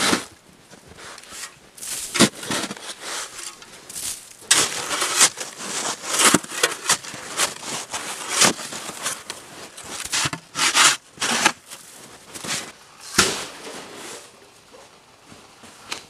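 Metal-bladed snow shovel digging into and scraping through deep, packed snow: a crunching scrape with each stroke, every second or two, some ending in a sharp hit.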